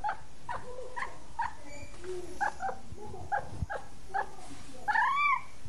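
Kittens mewing over and over in short, high, pitched cries, about two a second, with two longer rising-and-falling meows about five seconds in.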